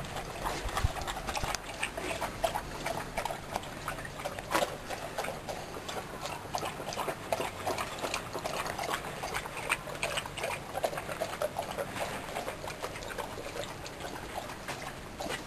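Bernese Mountain Dog lapping and slurping soup from a stainless steel bowl, a steady run of irregular wet clicks with a few sharper knocks.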